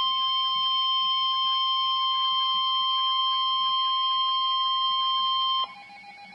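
NOAA Weather Radio 1050 Hz warning alarm tone, a loud steady single-pitch beep that signals an urgent alert message is about to follow. It cuts off sharply about five and a half seconds in, leaving only a faint lower hum and hiss.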